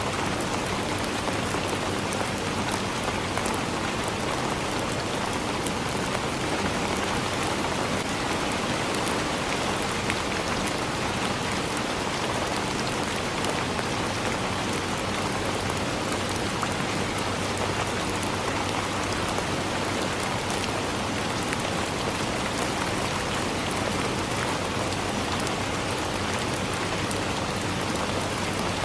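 Steady rain falling on forest leaves, a dense even patter of many fine drops with no letup.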